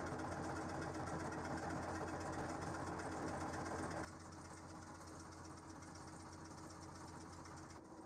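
Fishing boat's engine running steadily, heard from on board: a low, even hum with a fine rapid rattle. It drops to a quieter level about four seconds in.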